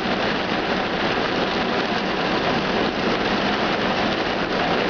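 Heavy rain drumming steadily on the roof and windows of a car, heard from inside the cabin.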